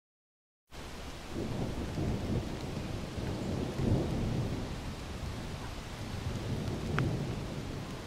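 Roar of a waterfall: a steady, deep rushing rumble of falling water that starts abruptly under a second in and swells several times, with one faint sharp tick near the end.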